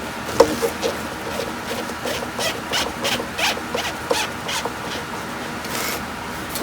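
A run of short scraping strokes from hand work, about three a second for some four seconds, then a brief hiss near the end.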